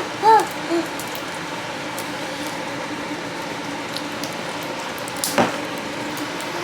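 Plastic wrap being peeled off toy eggs, a steady soft crinkling and rubbing, with one sharp click about five seconds in. A few short voiced hums sound at the very start.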